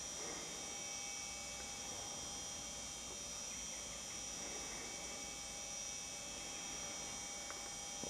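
Faint steady hum and hiss with a constant high whine, unchanging throughout; no call from the red deer stag.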